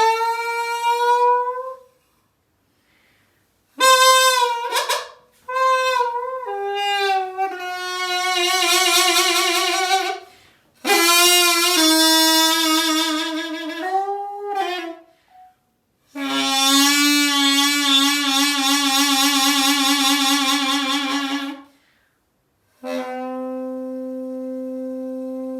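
Piri, the Korean double-reed bamboo pipe, played solo in free improvisation: phrases of sliding, bending notes and held notes with wide vibrato, broken by short silences, the last phrase a long steady low note.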